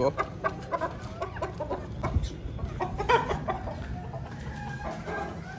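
Chickens clucking in short scattered calls, with a couple of brief knocks in the middle.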